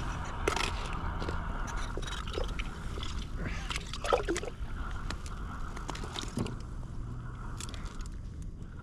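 Water sloshing and splashing in an ice-fishing hole as a hooked fish is brought up through it, with a louder splash about four seconds in and scattered clicks and knocks.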